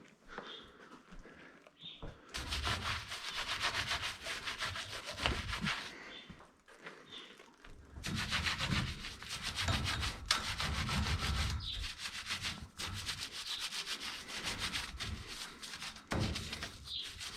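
A wet rag being scrubbed back and forth along a dairy barn's milk pipeline, in two long spells of rapid rubbing strokes with a short pause between them.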